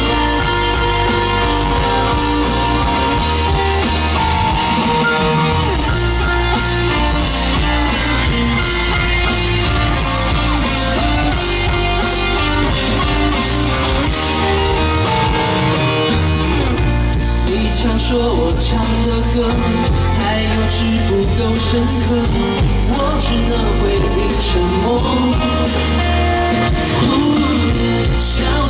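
Live pop-rock band music played loud on a concert stage, with a steady drum beat and heavy bass, and a singer's voice coming in over the band toward the end.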